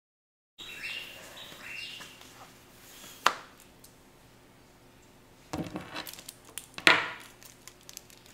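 Knocks and clatter of things being handled in a quiet room: a single sharp click about three seconds in, then a cluster of bumps and taps a little past the middle. Faint chirping from outside in the first couple of seconds.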